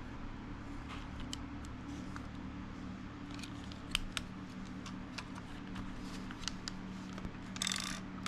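Scattered small sharp clicks of handling over a steady low hum, with a short scrape near the end.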